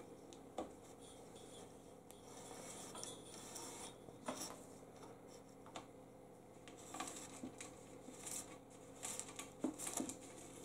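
Electrical wires and twine being pulled by hand through a telescoping pole saw's tube: faint rubbing and scraping with scattered light clicks.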